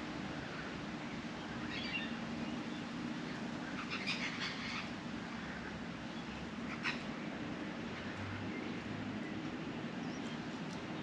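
Australian magpies giving a few short, harsh calls: one about two seconds in, a cluster around four seconds, and a sharp single call near seven seconds, over a steady low background hum.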